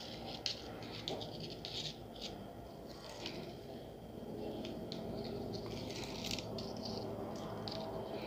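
Pearl beads clicking and rattling together in the fingers as a needle and nylon thread are worked through them, with small irregular ticks and soft scrapes over a low steady hum.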